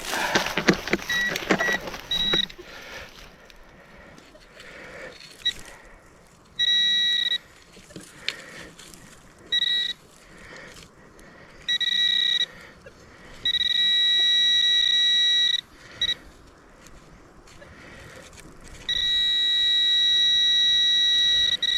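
Metal detector sounding a steady high-pitched electronic tone, switching on and off in about six bursts of half a second to three seconds as it is passed over a small buried metal target in loose dirt. The longest bursts come near the middle and at the end.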